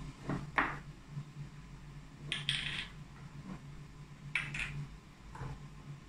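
Mixing spoon clinking and scraping against the bowl while stirring slime, in a few separate strokes, the longest scrapes about two and a half and four and a half seconds in.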